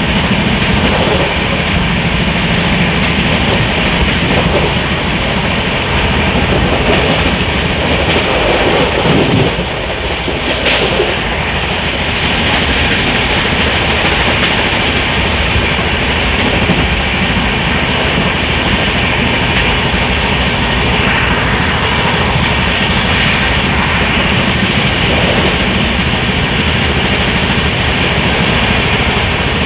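Express passenger train running at speed, heard from an open coach doorway: a loud, steady rush of wheel-on-rail and running noise.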